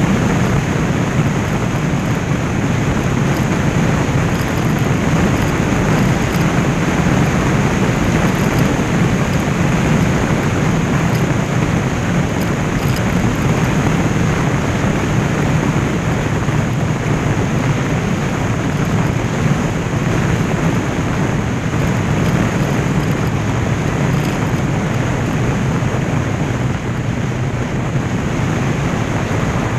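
Vehicle running steadily at road speed, with wind noise on the microphone.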